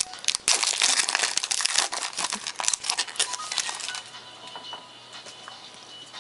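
A trading-card pack wrapper crinkling and tearing as it is opened and handled, dense and crackly for about four seconds, then dying down.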